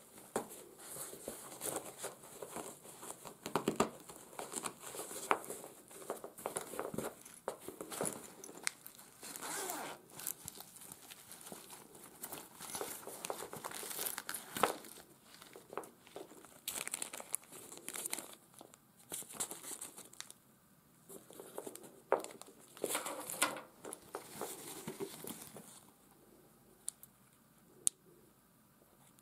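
Handling noise from a padded nylon carry bag being searched: irregular rustling, crinkling and short ripping sounds with scattered sharp clicks, as the fabric dividers and packed contents are moved. It settles to a faint background near the end.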